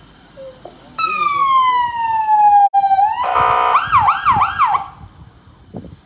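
Emergency-vehicle siren sounded in short bursts: one long falling whoop, then a harsh buzzing blast and three quick rising-and-falling yelps, cutting off about five seconds in. It is sounded to get the attention of occupants who are not answering.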